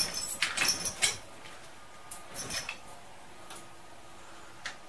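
Steel chain of a hand-operated chain hoist clinking and rattling as it is pulled through by hand to lower a battery pack. A quick run of clinks in the first second, then scattered single clinks.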